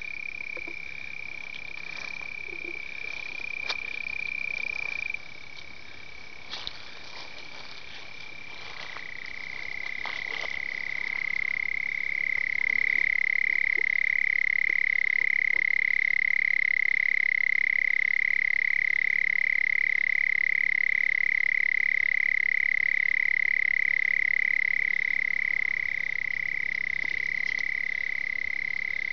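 Male Melanophryniscus aff. tumifrons red-bellied toads giving long, unbroken high-pitched advertisement calls. One call at a slightly higher pitch ends about five seconds in. Another grows louder from about nine seconds and holds steady almost to the end. A few faint clicks and rustles come in the first ten seconds.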